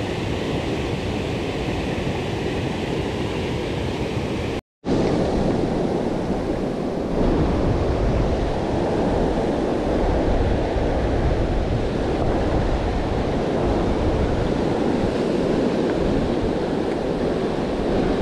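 Water rushing over and below an old river dam, a steady noise with no pattern in it. It cuts out for a moment about five seconds in and comes back louder and deeper.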